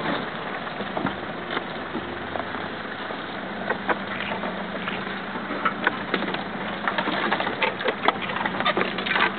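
African wild dogs feeding on an impala carcass: a patter of irregular small clicks and cracks from tearing and chewing, growing busier in the second half. A safari vehicle's engine idles low underneath.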